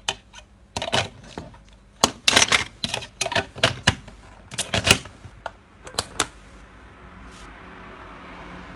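Plastic summoning keys and an Armor Hero toy transformation belt clicking and clattering as the keys are handled and pushed into the belt's slot: a string of sharp clicks, some in quick clusters, then a faint steady hiss from about seven seconds in.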